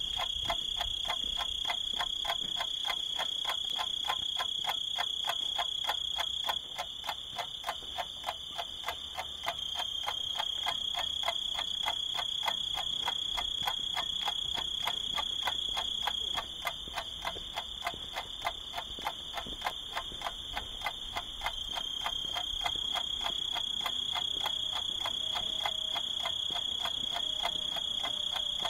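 A rapid, even ticking pulse, several beats a second, with a steady high whistling tone over it that stops and starts every several seconds.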